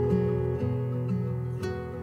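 Soft background music of plucked strings, with a few notes struck and left to ring out.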